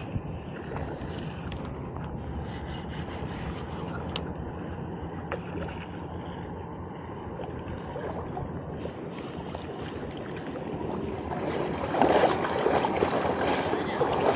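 Steady rushing of wind and shallow river water, turning louder and rougher about twelve seconds in, with a few faint clicks.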